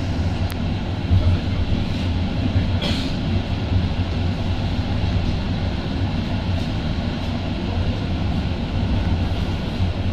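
Konstal 805Na tram running along the track, heard from inside the car: a steady low hum under the noise of the wheels on the rails. A sharp click comes about half a second in and a short hiss about three seconds in.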